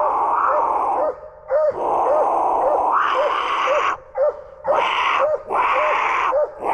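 Coonhounds baying in long drawn-out bawls, one after another with short breaks between them. Underneath, a separate short call repeats steadily about twice a second.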